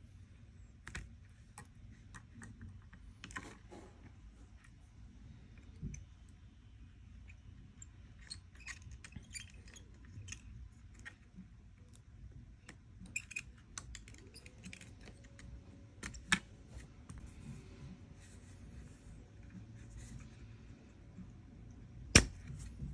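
Scattered small clicks and taps of tools and parts being handled at a workbench, with one sharper click near the end. About two-thirds of the way in, a faint tone glides up and then holds steady.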